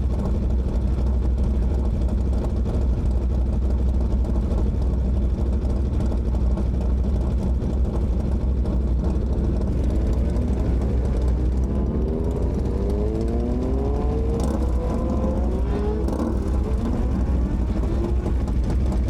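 Heavy wind rumble on the microphone while riding, with a motorcycle engine accelerating hard through several gears in the second half, its pitch climbing and dropping back at each shift.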